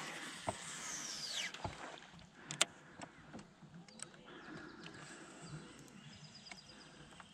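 Fishing reel during a cast: the spool whines as it pays out line, falling steadily in pitch over about a second and a half as it slows. A sharp click follows, then faint scattered ticking from the reel.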